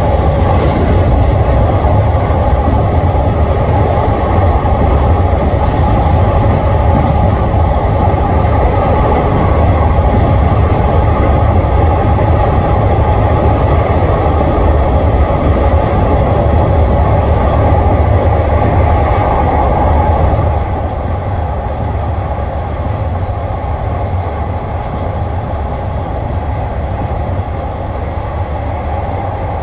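Train running at speed, heard from on board: a loud, steady rumble and rush of wheels on the rails and the carriage. It drops somewhat in level about twenty seconds in.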